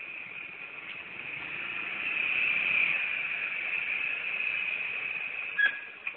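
Small motor scooter riding up and stopping, heard through a security camera's thin-sounding microphone as a hiss that grows louder partway through and falls away near the end, with a sharp click shortly before it drops.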